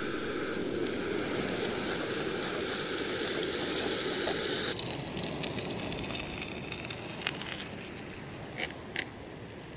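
Butter sizzling in a small frying pan over a gas canister camping stove, with the burner hissing. The sound drops off sharply about five seconds in, and two short clicks come near the end.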